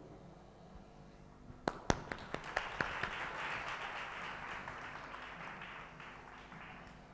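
Audience clapping: a few sharp separate claps about two seconds in, then a spell of scattered applause that thins out and fades near the end.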